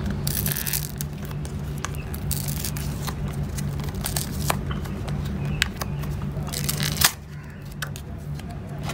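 Paper tear-strip seal being peeled off a small cardboard Apple USB-C power adapter box: three short bursts of tearing and rustling with a few small clicks, the last about seven seconds in, over a steady low hum that drops away just after it.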